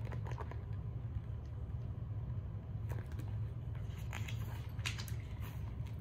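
Picture book being handled and its pages turned: a few soft paper rustles and clicks over a steady low hum.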